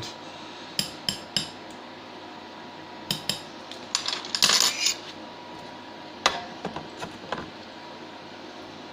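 Metal tool clinking and scraping against a metal melting pot while scooping out a little solder: a few sharp clinks, then a longer scrape, then several more clinks, over a steady background hum.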